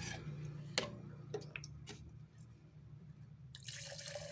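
Polyurethane thinner being poured from its can into a metal can, a stream of liquid splashing in from about three and a half seconds in. Before the pour there are a few light clicks.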